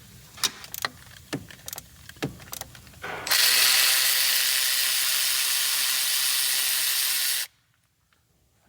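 A handful of sharp metallic tool clicks, then a handheld power tool spinning steadily for about four seconds before cutting off suddenly, as bolts are undone on the engine.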